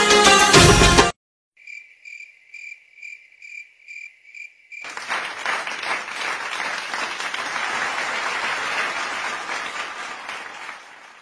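Music cuts off about a second in. Then a cricket chirps steadily, two to three chirps a second, the stock 'crickets' effect for an awkward silence, and after about five seconds applause starts and fades near the end.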